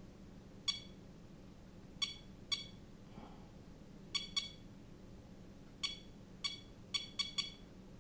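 ToolkitRC smart charger beeping at each button press while its menus are stepped through: about ten short, high beeps, irregularly spaced, with a quick run of them near the end.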